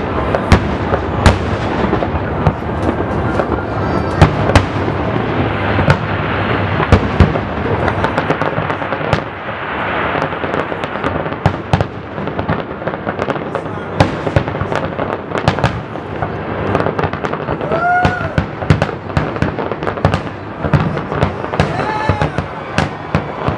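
Aerial fireworks display: a dense, continuous barrage of shell bursts and crackling, with many sharp bangs close together, easing slightly in the middle.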